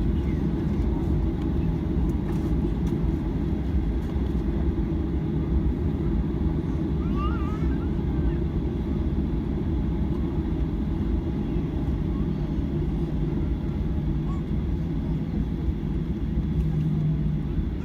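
Steady low cabin rumble of a Boeing 737-800 with its CFM56-7 engines running at low power, heard from inside the passenger cabin, with no spool-up.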